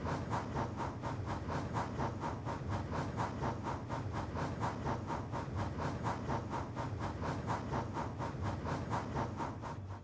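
Steam locomotive chuffing at a fast, even beat of about six chuffs a second, starting suddenly and cutting off abruptly into silence.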